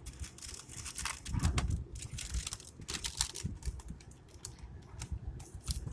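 Bait vending machine clicking and rattling as it works to dispense a bag of Doritos.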